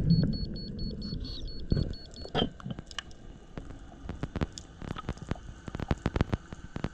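Underwater audio: a rapid run of about ten short, high electronic beeps from a diver's wrist dive computer, ending about a second in, over a low rush of water. After that, scattered sharp clicks and ticks.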